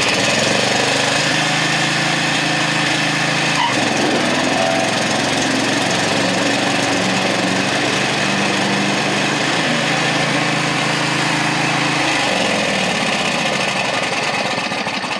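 The 24-horsepower engine of a Craftsman DYT 4000 riding mower running steadily, just started with a little choke. It gets quieter near the end.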